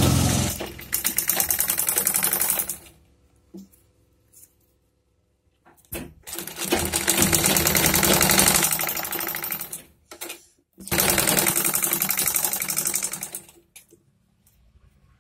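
Usha sewing machine stitching a zipper onto tracksuit fabric: fast, even needle clatter in three runs, the first stopping about three seconds in, the second from about six to ten seconds, the third from about eleven to fourteen seconds, with short pauses between.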